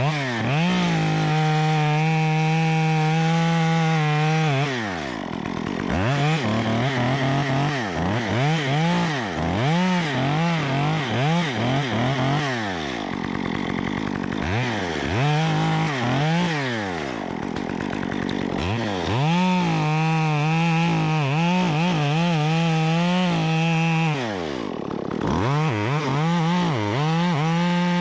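Stihl MS 194T two-stroke top-handle chainsaw, on a 1/4-inch Ripsaw chain conversion, revving up and down over and over. It is held steady at full throttle for a few seconds near the start, for a longer stretch about two-thirds of the way in, and again at the end.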